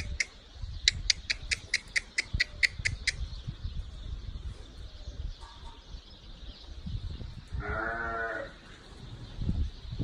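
A sheep bleats once, a single wavering bleat about a second long, near the end. Earlier, a rapid run of high, evenly spaced chirps, about five a second, lasts a couple of seconds and gives the loudest peaks.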